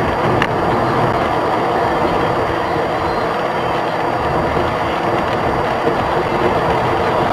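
Steady rumble of a vehicle driving, engine and road noise with no break or impact.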